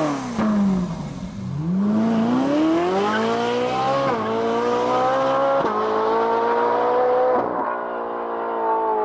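Car engine revving briefly, then accelerating hard through the gears: the pitch climbs steadily and drops sharply at each upshift, three times in the second half.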